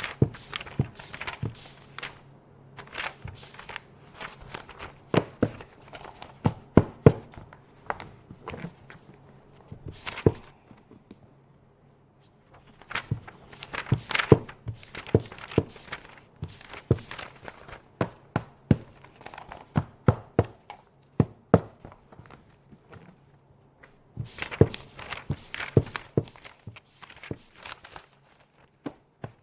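Sheets of office paper being handled: an irregular run of short knocks and rustles as paper is picked up, shuffled and set down, with a pause about eleven seconds in.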